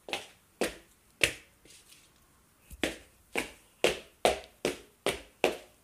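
A run of short, sharp clicks, about two a second, stopping for a second or so in the middle before going on.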